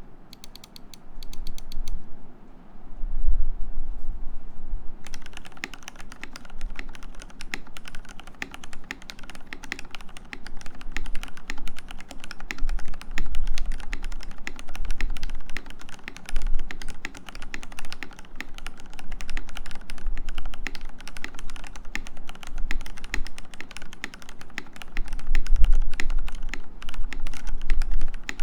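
Typing on a KBDFans 8X MK-II mechanical keyboard with lubed Cherry MX Black linear switches in an aluminium plate with plate foam, under CRP keycaps. A few scattered keystrokes in the first two seconds, then fast continuous typing from about five seconds in.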